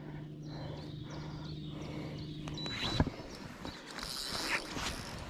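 Spinning reel's drag buzzing steadily for a couple of seconds as a large wels catfish takes line, then stopping, followed by a sharp knock.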